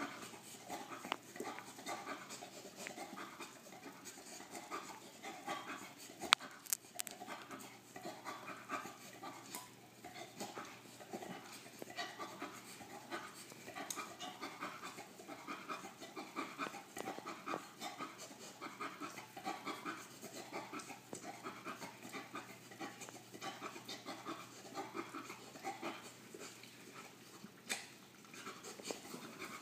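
English bull terrier panting in a steady rhythm while mouthing and licking a rubber ball, with a single sharp click about six seconds in.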